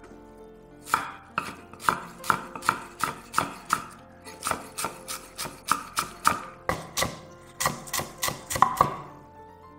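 Chef's knife slicing a scallion on a wooden cutting board: a steady run of crisp knocks, about two to three a second, starting about a second in and stopping shortly before the end.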